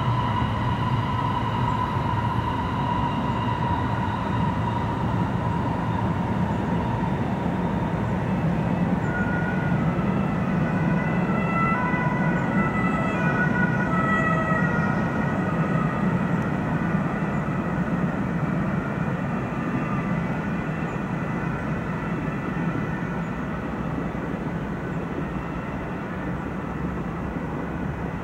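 Siemens Vectron electric locomotive running across a rail bridge: a steady rolling rumble with a high, steady whine and its overtones. About a third of the way in, several higher tones come and go for a few seconds, and the sound gradually fades toward the end.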